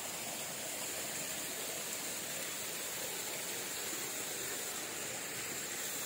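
Steady, even rush of water flowing over the rocks of a mountain stream and waterfall.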